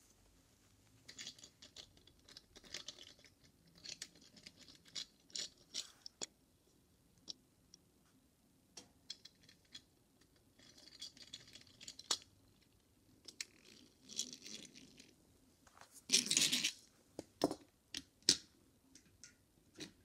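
Toy cars being pushed and scraped along a windowsill: scattered scrapes, clicks and light knocks, with a louder scraping rush about two-thirds of the way through and two sharp clicks soon after.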